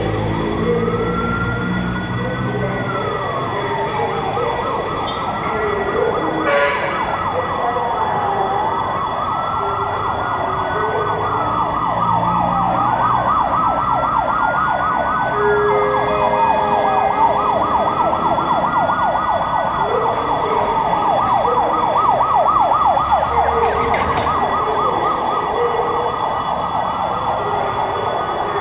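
Fire truck siren sounding continuously. Slow rising-and-falling wails alternate with a fast warbling yelp, and short low horn-like tones break in every few seconds.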